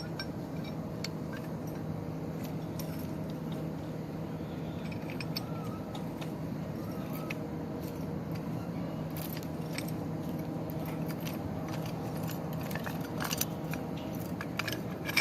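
Light metallic clinks and clicks from handling metal tent-frame parts over a steady low hum. The clinks come sparsely at first and grow more frequent near the end.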